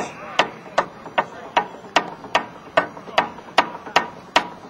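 Steady rhythmic hand clapping, about two and a half sharp claps a second, stopping near the end.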